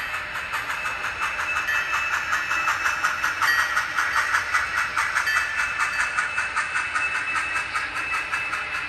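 Sound-equipped N scale model steam locomotive playing fast, even steam chuffs with a steady hiss through its small onboard speaker as it runs past.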